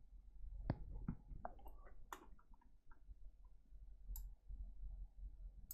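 Faint, scattered small clicks and taps of handling inside an opened electronics programmer, as a flex cable is worked back toward its connector.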